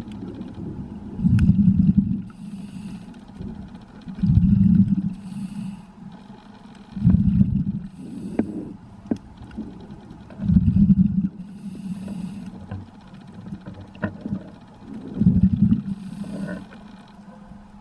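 A scuba diver breathing through a regulator underwater: about every three seconds a loud burst of exhaled bubbles rumbles past, followed by the fainter hiss of the next inhale, five cycles in all.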